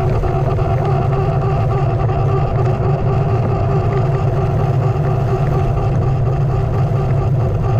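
A Onewheel's electric hub motor whining steadily at cruising speed, several steady tones over a low, even rumble of tyre and wind noise.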